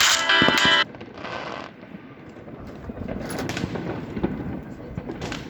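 Music that cuts off abruptly under a second in, followed by quieter fireworks: a short hiss, then scattered pops and crackles that grow more frequent after about three seconds.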